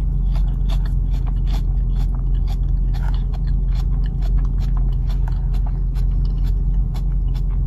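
Close-up chewing of a crisp lettuce salad, a run of small wet crunches, over a steady low hum.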